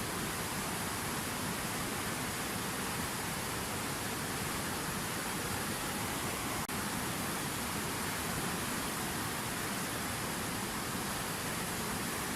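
Water from a fountain waterfall falling and splashing in a steady, even rush. About seven seconds in there is a brief dropout.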